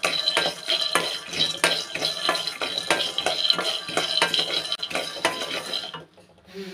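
Raw peanuts dry-roasting in an aluminium kadai, rattling and scraping against the metal as a wooden spatula stirs them in quick, irregular strokes. The stirring stops about a second before the end.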